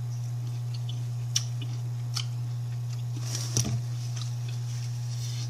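A person chewing and biting food close to the microphone: a few sharp mouth clicks about a second and a half and two seconds in, and a louder cluster about three and a half seconds in, over a steady low hum.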